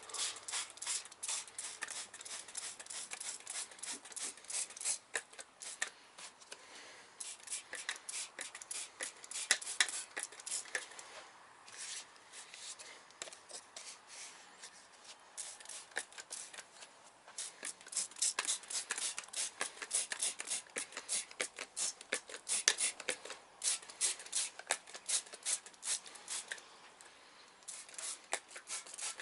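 Hand trigger spray bottle squirting degreaser onto an engine bay, many quick squirts in a row, several a second, with a short lull about halfway through and another near the end.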